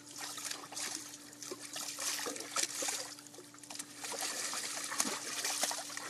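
Water splashing and sloshing in a shallow plastic paddling pool as a bulldog thrashes and steps about in it, with a steady faint hum underneath.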